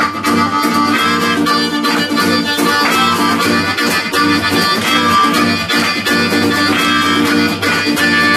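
Harmonica cupped against a vocal microphone, playing held chords over a strummed acoustic guitar.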